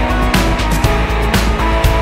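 Background music with a steady beat of about two strokes a second over a heavy bass.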